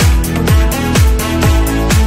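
Electronic dance music in an instrumental stretch: a steady kick drum about twice a second, each hit dropping in pitch, under sustained synth chords.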